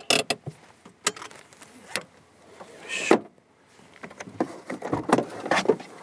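Scattered clicks, knocks and rustles of someone getting into and out of a Suzuki Jimny through its open door, with a louder knock about three seconds in and a cluster of knocks shortly before the end.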